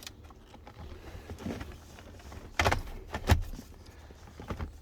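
Plastic centre-console trim pieces of a Jeep Grand Cherokee being handled and fitted. A low rustle runs throughout, and a little past halfway come a few sharp plastic knocks and clicks, the last and loudest about two thirds of the way in.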